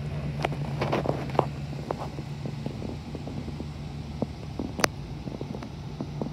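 Ford E-350 Super Duty box truck's engine idling with a steady low hum, while footsteps crunch irregularly on gravel close by. A sharp click comes about five seconds in.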